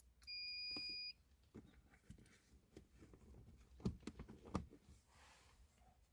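A single long electronic beep from a small appliance, just under a second long, followed by a few soft knocks and clicks of handling.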